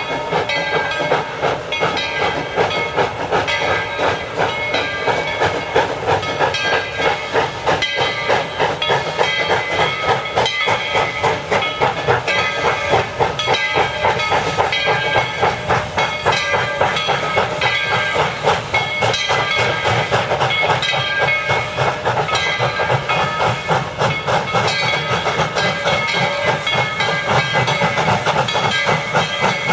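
Steam locomotive working, a continuous hiss of steam with a fast, even pulsing beat over a set of steady ringing tones.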